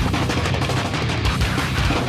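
Loud heavy metal music with distorted guitars and steady drum hits.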